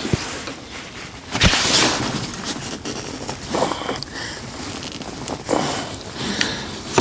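Hands working a stuck rubber coolant hose off its fitting on a truck engine: irregular scraping and rubbing, with a sharp knock right at the start and another about a second and a half in.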